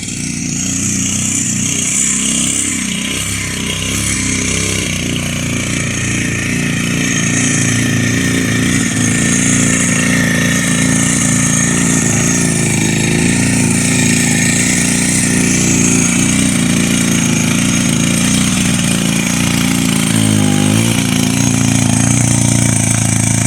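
Small petrol engine running steadily under load. Its pitch dips briefly and recovers about twenty seconds in.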